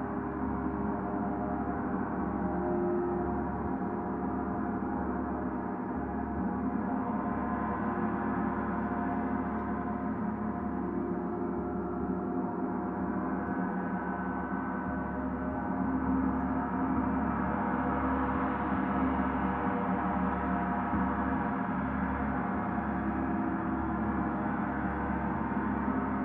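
Gongs sounding together in a gong bath: a dense, steady wash of many overlapping ringing tones with no distinct strikes, swelling a little about two-thirds of the way through.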